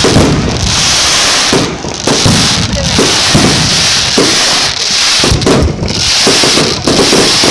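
Fireworks display at close range: a dense, near-continuous barrage of shell bursts, bangs and crackling with no gaps.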